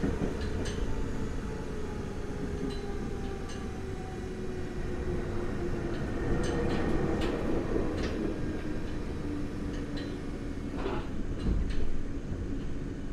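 Onboard running sound of a Nagoya Municipal Subway 3000 series train with armature chopper control: steady wheel and track rumble under a motor tone that falls slowly in pitch as the train slows. Scattered clicks from the track, a cluster of them louder near the end.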